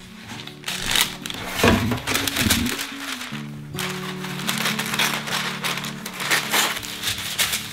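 Parchment paper crinkling as it is unrolled off the roll and cut with scissors, in irregular rustles and snips, over background music with sustained tones.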